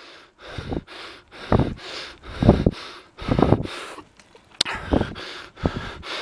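A cyclist's heavy panting close to the microphone, strong breaths about once a second with lighter ones between, out of breath from a steep climb. A single sharp click about four and a half seconds in.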